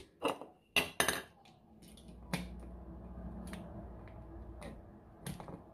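Sharp clicks and knocks of a small screwdriver and the plastic and metal parts of a toy train being handled and set down on a wooden table, several close together in the first second and a few more spread after, with a faint low hum underneath for a few seconds in the middle.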